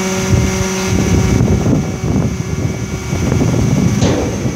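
Dennis Eagle refuse truck's engine and hydraulics running, a steady hum that cuts off about a second and a half in, with wind rumbling on the microphone.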